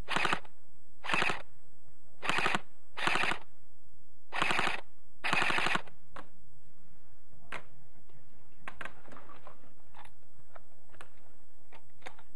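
An airsoft electric gun (AEG) firing six short full-auto bursts, its gearbox cycling rapidly, over about the first six seconds. After that come only faint, scattered clicks.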